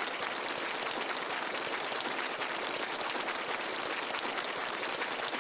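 Audience applauding: steady, dense clapping from a crowd.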